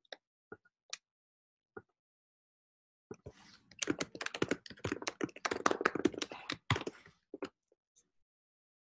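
Typing on a computer keyboard: a few single key clicks, then a fast burst of typing from about three seconds in that stops about four seconds later, followed by a couple more clicks.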